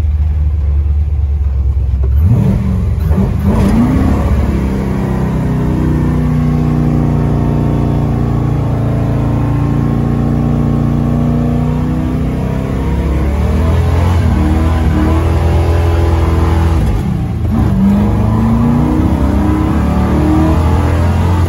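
1964 GMC pickup's engine, heard from inside the cab, revving up about two seconds in and held at high revs for a rolling burnout, the rear tires spinning and smoking. The revs drop back about two-thirds of the way through and climb again near the end.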